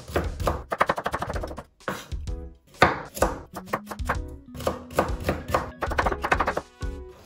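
Kitchen knife cutting carrot into thin strips on a bamboo cutting board: quick runs of sharp chopping taps against the board, with short pauses between runs.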